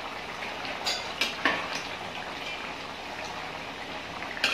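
A metal ladle stirring chicken gravy simmering in a metal pot, with a few light knocks and scrapes against the pot about a second in, over a steady hiss.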